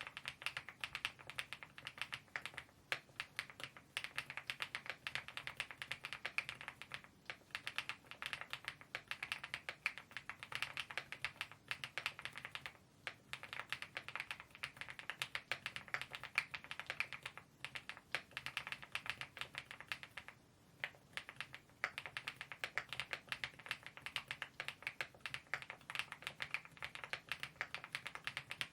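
Continuous fast typing on a mechanical keyboard fitted with KeyTok Godzilla dye-sublimated keycaps: a dense stream of keystroke clacks, broken by two short pauses, about halfway and about two-thirds of the way through.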